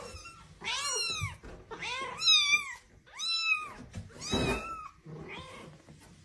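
Newborn kittens mewing: about five high, thin mews that each rise and fall in pitch, the loudest about two seconds in.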